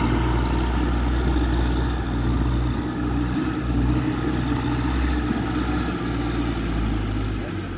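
Heavy vehicle's diesel engine idling steadily, a low even hum.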